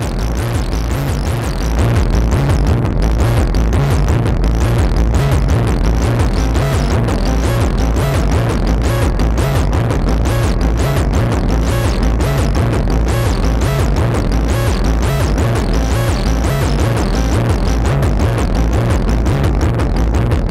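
Dirty, grungy techno sequence from a modular synthesizer patch: a dense repeating pattern over pulsing bass, getting louder about two seconds in.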